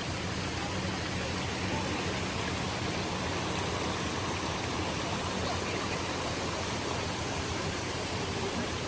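Steady, even rush of flowing water, like a mountain stream running after a mudslide.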